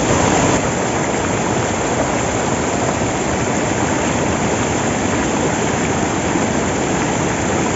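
Waterfall and fast-flowing stream rushing close by, a steady unbroken noise with no let-up.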